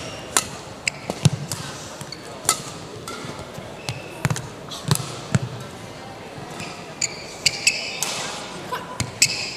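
Badminton rally: rackets striking a shuttlecock in sharp taps about every second, with the players' shoes squeaking and their feet thudding on the court floor.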